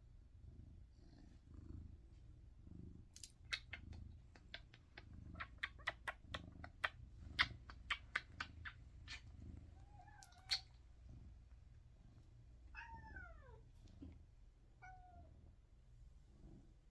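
Domestic cat purring, with a quick run of sharp clicks in the first half, then three short meows, the middle one sliding down in pitch.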